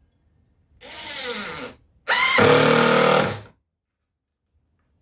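Power drill driving screws into subfloor: a short run with the motor pitch dropping under load, then a longer, louder run about a second later.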